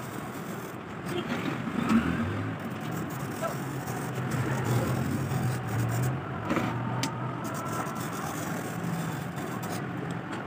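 Hand-held glass cutter scoring a circle in a sheet of clock glass: a dry, steady scratching as the cutter runs round, over a steady low hum, with a couple of sharp ticks past the middle.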